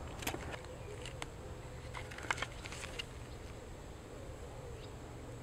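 A few light clicks from the 3D-printed pistol being handled and raised, over a faint wavering buzz.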